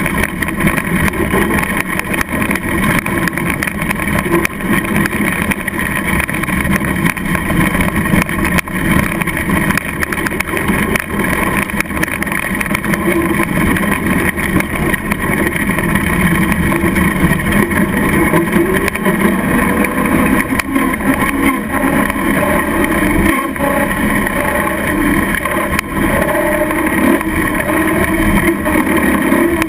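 Traxxas Slash RC short-course truck driving, heard from on board: a steady motor and drivetrain whine mixed with the rumble of the tyres on gravel and asphalt.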